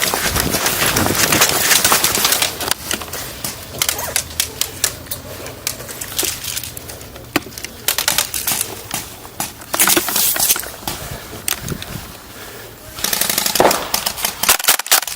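Airsoft guns firing in rapid bursts of sharp clicks, on and off, densest at the start and again shortly before a sudden drop near the end.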